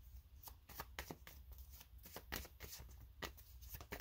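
A tarot deck being shuffled by hand: a run of faint, quick, irregular card flicks and taps.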